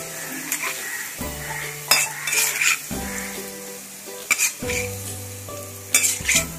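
Onions frying and sizzling in hot oil in a kadhai, with a metal slotted spoon scraping and clinking against the pan as the fried onions are lifted out; a few sharp clinks stand out.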